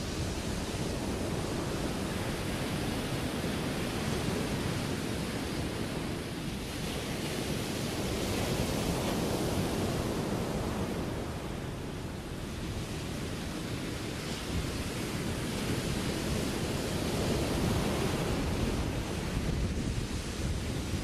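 Ocean surf washing and breaking in a steady rush that swells louder a couple of times, with some wind on the microphone.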